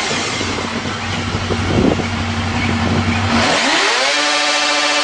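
Motorcycle engine revving hard during a burnout, held at a steady high pitch, then climbing to higher revs about three and a half seconds in and holding there.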